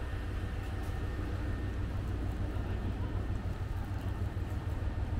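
Steady low rumble of railway station ambience, with a faint hiss above it.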